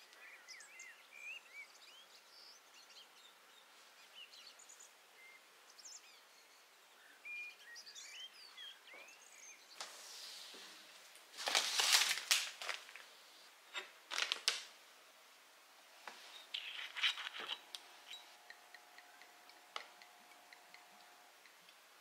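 Faint bird chirps, then a freezer drawer being pulled open and a plastic-wrapped packet lifted out, the wrapper rustling loudly with a few knocks and clicks, about halfway through and again a few seconds later.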